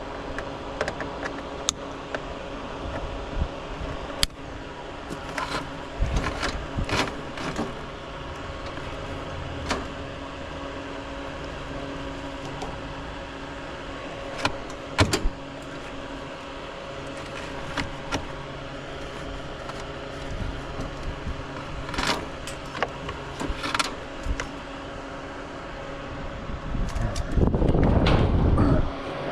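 Scattered clicks and knocks of hand tools and wire terminals as condenser fan motor wires are pulled off at the contactor, over a steady low hum. Near the end, a gust of wind rumbles across the microphone for about two seconds.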